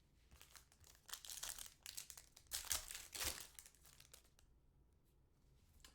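A trading card pack's wrapper being torn open and crinkled, a run of crackling rustles lasting about three seconds that fades to faint handling.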